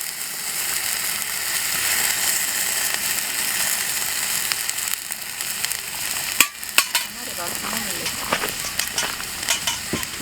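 Food frying in a pan: a steady sizzle, with a few sharp clicks and pops in the second half.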